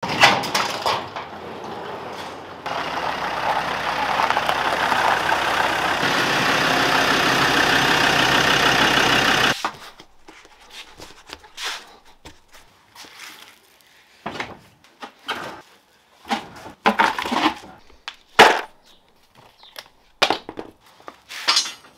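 A steady loud rushing noise that lasts about seven seconds and stops abruptly, followed by scattered knocks and clunks as rubber suspension spring spacers and a mud-terrain tyre are handled.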